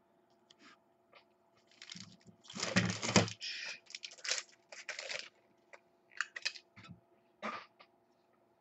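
Handling noise from trading cards and their plastic sleeves: irregular rustles and short clicks, with the fullest rustle about two to three seconds in, over a faint steady electrical hum.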